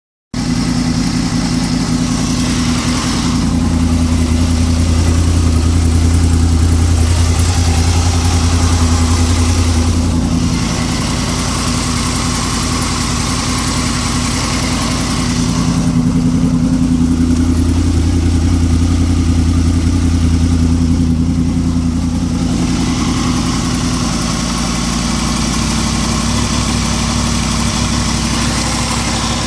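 Engine idling steadily, with a low droning hum that swells in and fades out twice, each time for about seven seconds: the weird noise that the owner is asking about.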